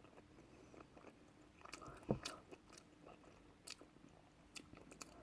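Quiet chewing and biting of chicken wings, with scattered small mouth clicks and a louder bite about two seconds in.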